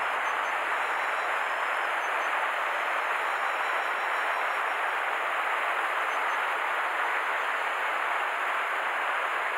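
Steady rush of flowing river water: an even, unbroken hiss of a current running over a riffle.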